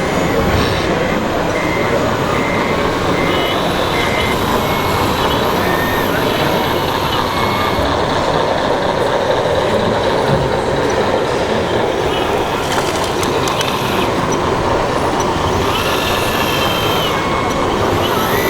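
Sound modules of scale RC model trucks and construction machines playing diesel engine noise, with a reversing beeper pulsing in the first few seconds, over steady background chatter.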